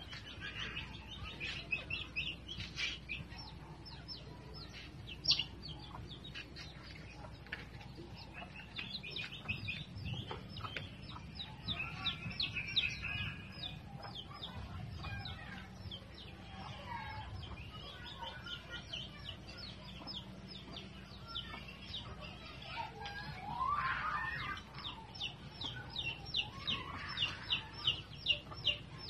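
Backyard chickens clucking and chirping, with many short high calls all through and a fast, even run of them near the end.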